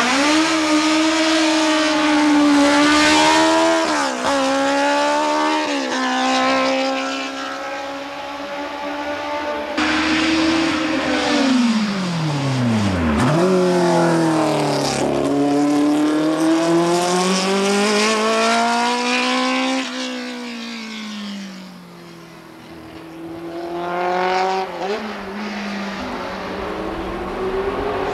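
Sports-prototype race car engine at full throttle, pulling up through the gears with the pitch climbing and dropping back at each shift. About halfway through the car passes close by with a sharp fall in pitch. The engine dips lower a few seconds before the end, then climbs through the gears again.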